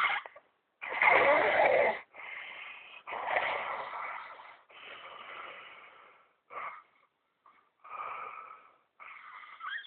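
Snoring: a run of noisy, wheezy breaths about a second long each. The loudest is about a second in, and the later ones are shorter and fainter.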